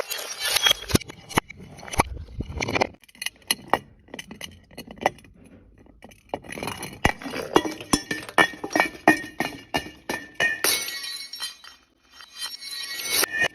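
Glass bottles shattering, with many sharp crashes and the clinking and tinkling of broken glass pieces, in several bursts.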